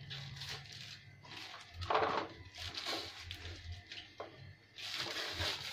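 Plastic wrapping crinkling and tearing as it is cut and pulled off a cardboard parcel, in irregular rustles with the loudest about two seconds in.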